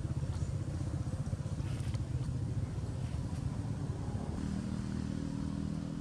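An engine running steadily, a low pulsing hum whose pitch shifts about four and a half seconds in.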